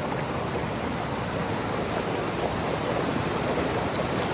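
Steady rush of river water flowing over rocks.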